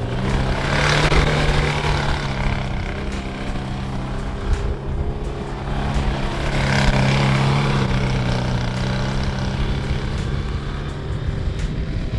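Car engine running at a steady speed, with two swells of rushing noise, about a second in and again around seven seconds in.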